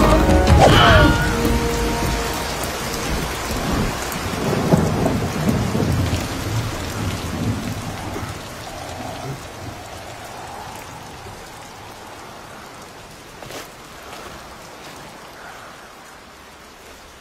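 Rain falling with low rumbles of thunder, the storm heavy at first and fading gradually to a faint hiss.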